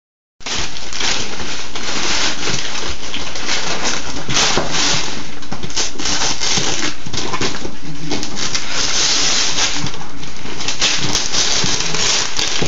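Wrapping paper being torn and crumpled as a gift box is unwrapped, a continuous run of rips and crinkles.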